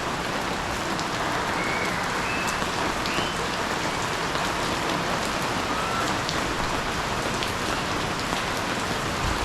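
Steady rain falling, a continuous hiss with scattered drop ticks.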